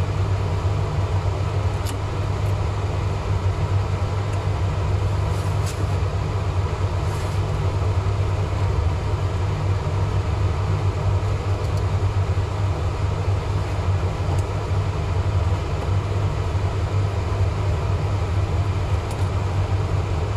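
Steady low drone of a clean room's air-filtration fans, with a few faint small clicks about two, six and seven seconds in.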